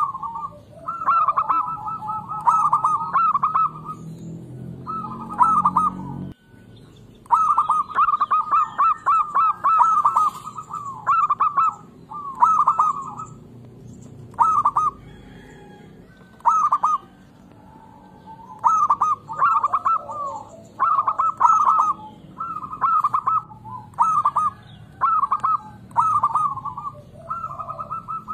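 Zebra dove cooing: short, rapid, trilled phrases repeated again and again, with a brief break a little after six seconds, over a faint low hum.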